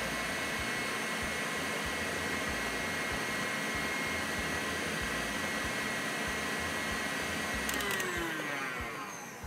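KitchenAid stand mixer running on high speed, its wire whisk whipping egg and sugar: a steady motor noise with a thin high whine. About eight seconds in there is a click and the motor winds down, falling in pitch.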